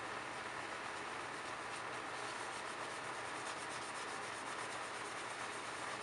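A sponge working Soft Scrub cleanser over a greasy ceiling fan blade with steady, gentle strokes: a continuous, quiet rubbing and scouring.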